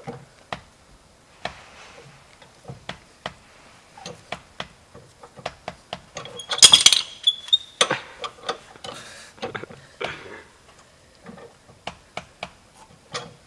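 Car's roadside jack being cranked by hand to lift the car, metal parts clicking and knocking irregularly with each turn. There is a louder, brief scraping squeal about halfway through.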